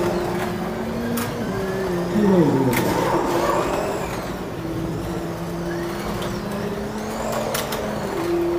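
Carrera Digital 1/24-scale slot cars lapping the track, their electric motors whining and shifting in pitch as they speed up and slow down, with one whine falling sharply about two seconds in and a few sharp clicks.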